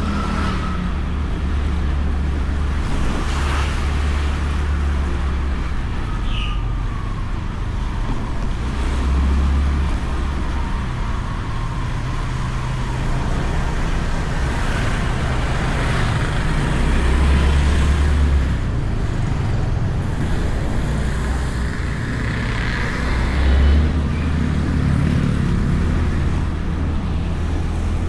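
Honda Beat scooter on the move, heard from a camera mounted on the scooter: a steady wind rumble on the microphone over the engine and road noise, swelling a few times along the way.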